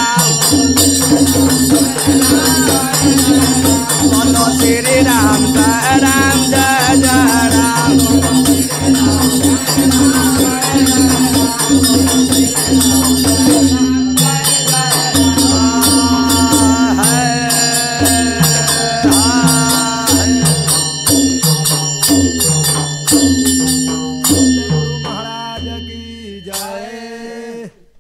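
Devotional folk music of mandar barrel drums and small hand cymbals playing a steady rhythm under a melody line. It fades out over the last few seconds and stops just before the end.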